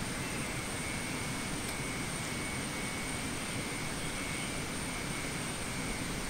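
Rainforest ambience: an even, steady rushing noise with a high, steady insect drone on top.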